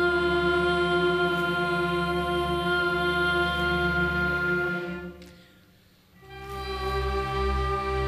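String orchestra of violins and double basses bowing long held chords. The first chord fades away about five seconds in, and a new chord with a fuller bass enters about a second later.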